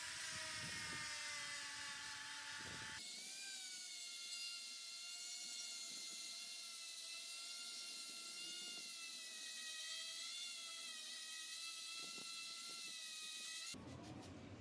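Electric angle grinder with a 120-grit sanding disc running with a high-pitched whine, sanding rust off a steel grub hoe blade. The tone changes suddenly about three seconds in, wavers slightly in pitch as the disc works the metal, and stops shortly before the end.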